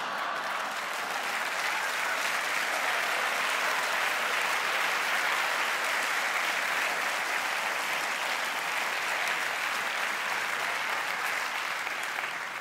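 Live audience applauding steadily, easing off near the end.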